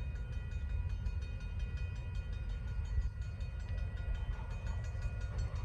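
VIA Rail passenger train passing at track speed: a steady low rumble of the wheels on the rails, with rapid, even clicking over the track.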